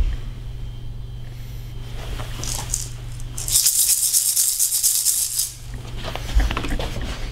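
A pair of maracas shaken: two brief rattles about two and a half seconds in, then a steady shaking for about two seconds.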